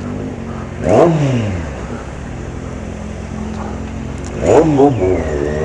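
Kawasaki Z750 inline four-cylinder engine running steadily, with two quick throttle blips that rev up and drop straight back, about a second in and again near the end. Wind noise on the microphone underneath.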